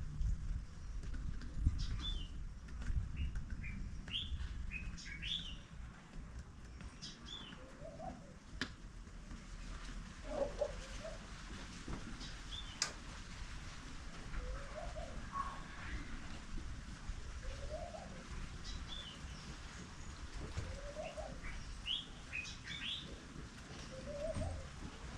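Outdoor daytime ambience of birds: clusters of short high chirps, and a lower short call repeating every two to three seconds in the second half, over a low rumble.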